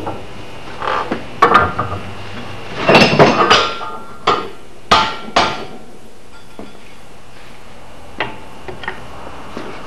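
Hammer blows on a wooden axe handle seated in a steel axe head clamped in a vise, each with a short metallic ring. The blows come singly about a second in, in a quick cluster around three seconds, again near four and five seconds, then as lighter taps near the end. They are knocking the handle in and out of the eye to check its fit.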